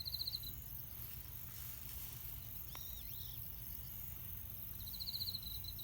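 Rural outdoor ambience: a short, rapid, high trill sounds twice, about five seconds apart, with a couple of high arching chirps in between, over a steady low hum.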